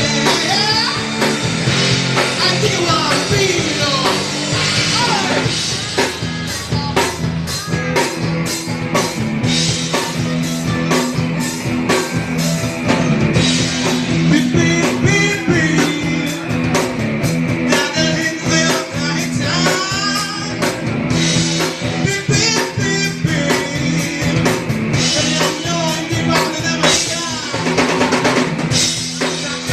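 Rock song with a singing voice over a steady drum beat; the drums come in more strongly about six seconds in.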